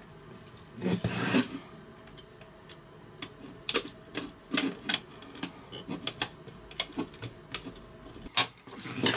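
Hard 3D-printed plastic parts being handled and fitted together: a scraping rustle about a second in, then scattered light clicks and knocks of plastic on plastic and on the bench.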